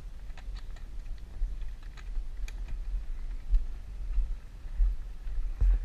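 Low rumble on a dirt bike rider's helmet camera as the bike moves off along a gravel trail, with scattered light clicks and knocks and a few louder swells.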